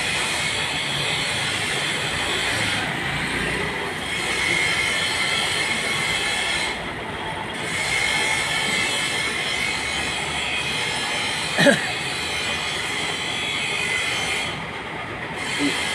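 Steady loud machinery noise, a dense mechanical din with a faint high whine running through it, and one short sharp knock about three-quarters of the way through.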